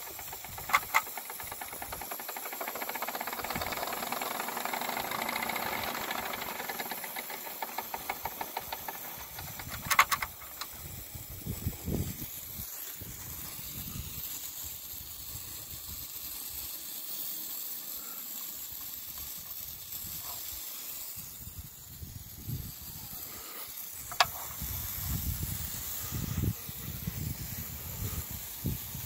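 Wilesco D21 model steam engine running: a steady hiss of steam with the fast, regular chuff of its cylinder, stronger in the first several seconds. A few sharp clicks, the loudest about ten seconds in.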